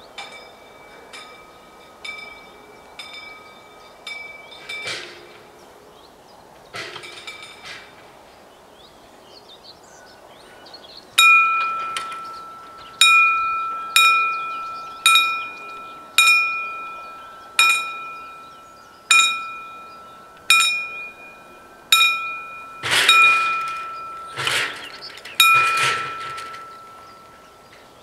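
Level-crossing warning bell striking single rung notes roughly once a second, each ringing out, warning of an approaching train as the barriers come down. The strikes are faint at first, then loud from about eleven seconds in. A few short rushes of noise come near the end.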